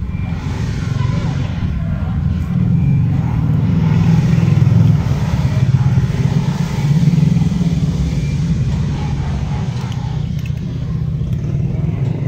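Low, steady engine rumble of a nearby motor vehicle in street traffic. It swells to its loudest around the middle and eases off toward the end.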